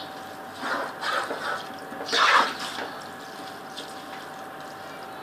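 Water with rice in it sloshing and bubbling in a cooking pot in short bursts, the loudest about two seconds in, over a faint steady hum.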